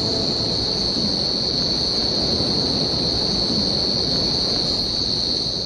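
Night rainforest ambience: a steady, high-pitched insect chorus over a dense, even lower hum.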